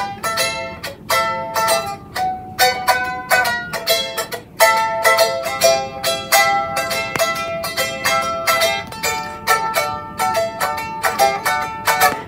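Tahitian ukulele strummed in quick chords, several strokes a second, with a brief pause about four and a half seconds in.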